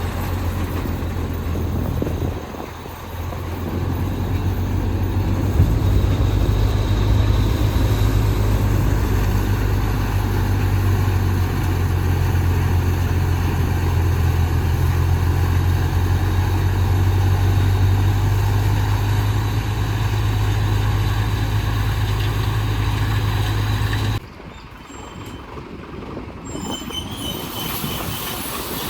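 Tractor's diesel engine running steadily, powering a Nippy45 mini combine harvester attachment, with a brief dip about two and a half seconds in. About 24 seconds in it cuts off abruptly to a quieter engine sound that rises again near the end.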